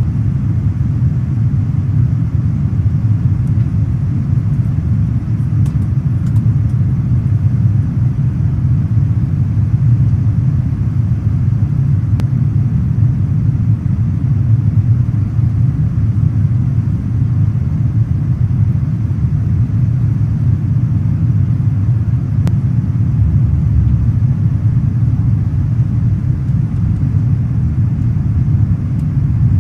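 Airliner cabin noise: a steady low rumble of the engines and rushing air, heard from inside the cabin during the approach to landing.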